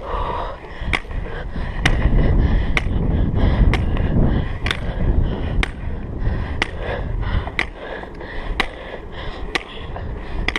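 Hiking pole tips clicking on asphalt about once a second as a manual wheelchair is pushed along with them, over a steady rumble of the wheels rolling on the road.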